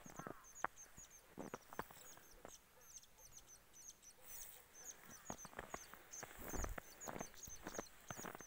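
Faint footsteps in fresh snow, coming irregularly. Behind them a small bird calls in quick, high, repeated chirps, about three or four a second.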